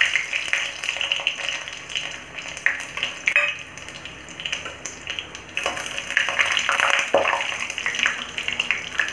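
Whole tadka spices (bay leaves, dried red chillies, cumin, black pepper and garlic cloves) sizzling and crackling in hot mustard oil in a kadhai, swelling louder in spells as they fry towards golden brown. Near the end a metal spatula stirs them.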